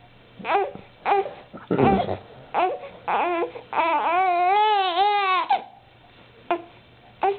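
Baby vocalizing: several short high-pitched squeals and grunts, then one long wavering call lasting nearly two seconds, then two brief sounds near the end.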